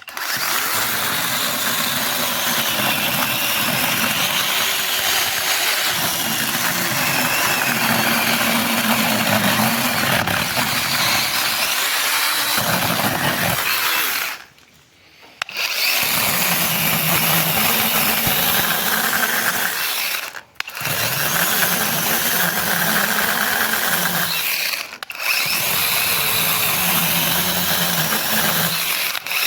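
Cordless 6-inch mini electric chainsaw running, with its pitch shifting. It stops for about a second halfway through and twice more briefly later on.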